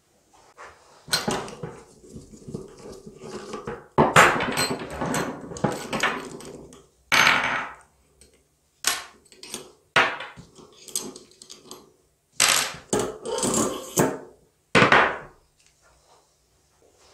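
Motorcycle front-fork internals being taken apart by hand: metal clinks, knocks and short scrapes as the fork spring, spacer and washers are slid off the damper rod and set down on a wooden workbench. The sounds come in irregular bursts, with brief pauses between them.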